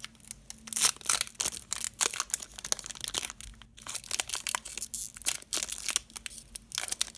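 Foil wrapper of a Pokémon Evolutions booster pack crinkling and tearing as it is pried open, a fast irregular run of sharp crackles.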